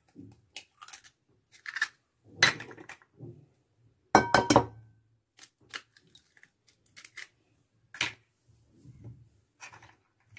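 Eggs being cracked against the rim of a glass mixing bowl: sharp taps and clinks on the glass, the loudest cluster about four seconds in with the glass ringing briefly, among smaller clicks of eggshell.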